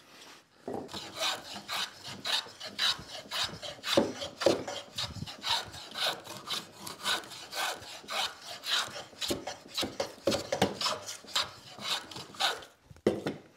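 Hand plane taking quick, regular shaving strokes along a wooden stool leg made from a 2x4, tapering it down. The strokes begin under a second in and stop shortly before the end.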